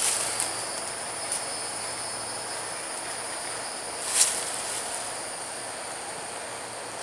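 Steady high-pitched drone of insects, with a short rustle about four seconds in as the hammock is handled at the tree.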